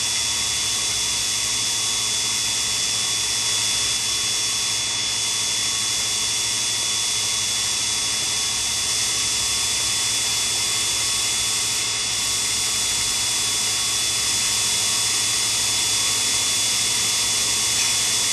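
Grinding-wheel spindle motor of a miniature Sherline CNC cam grinder running steadily: an even motor hum and hiss with a thin high-pitched whine, unchanged as the wheel is brought up to the camshaft blank.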